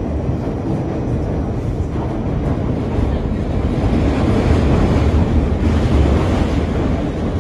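R68 subway car running at speed through the tunnel, heard from inside the car: a steady rumble and rush of wheels on rails. It grows louder about four seconds in and eases again near the end.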